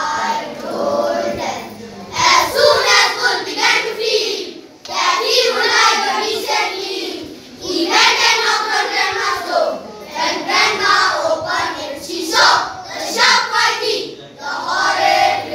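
A group of schoolboys singing together as a choir, in phrases with short breaks between them.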